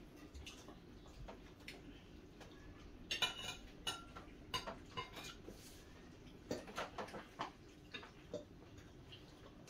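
Cutlery clinking and scraping on dinner plates as several people eat: faint scattered clicks, bunched about three seconds in and again around seven seconds in.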